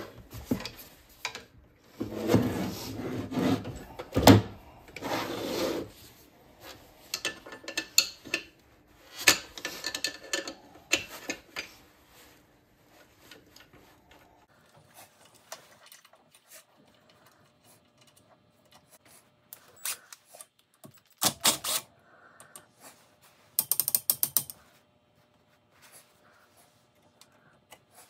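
Wrench ratcheting on the bolts that hold an electric motor to a drill press as they are undone: rapid clicking through the first dozen seconds, then sparser clicks and two short rattling bursts past the two-thirds mark.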